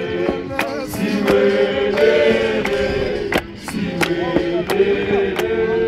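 Men's group of Zion Christian Church members singing a chant-like hymn together in held, harmonised notes, with sharp hand claps on a steady beat about twice a second and a brief break in the singing about halfway.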